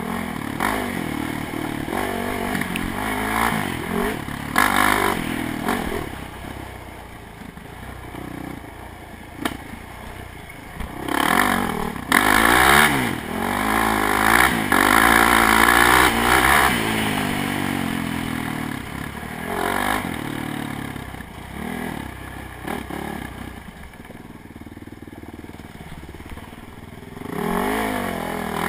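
ATV engine revving up and down as the quad is ridden along a dirt trail, its pitch rising and falling with the throttle, loudest under hard throttle from about halfway through. Short knocks now and then as it runs over bumps.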